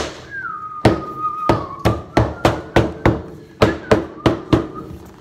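Soft-faced mallet with a wooden handle knocking a solid hardwood floorboard into place: about a dozen quick, sharp blows, roughly three a second, stopping near the end.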